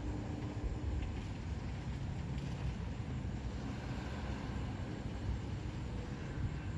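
Steady low engine rumble of a vehicle.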